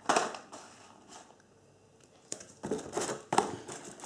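Cardboard and packaging rustling and scraping as a hand rummages through a shipping box of small cardboard firework packs: a short scrape right at the start, then a cluster of louder scrapes and crinkles in the second half.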